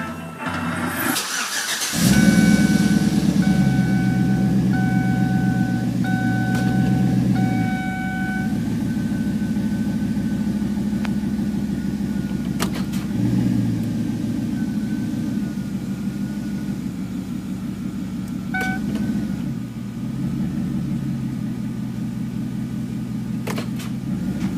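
Chevy Avalanche's V8 engine cranking and starting about a second or two in, then idling steadily. Over the idle, a dashboard warning chime beeps about five times.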